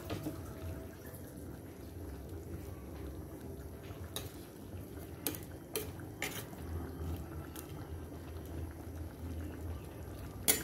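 Papaya simmering in coconut milk in a pot, bubbling steadily as it comes to the boil. A few short sharp clicks sound over it, the loudest near the end.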